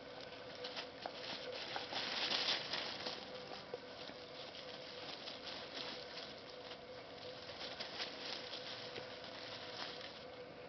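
Dry fallen leaves crackling and rustling under the paws of young puppies as they scamper and tussle over toys, louder for a moment about two seconds in.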